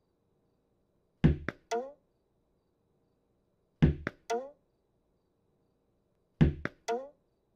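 Tennis ball thrown and bouncing, heard three times about two and a half seconds apart. Each time there is a heavy knock, a quick second tap, then a short bouncing sound that falls in pitch.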